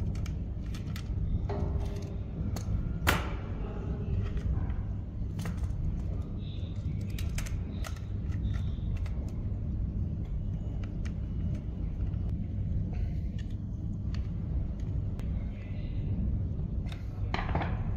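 Small clicks and taps of a screwdriver working the terminal screws of a miniature circuit breaker and handling its cable lugs, with one sharper click about three seconds in, over a steady low background rumble.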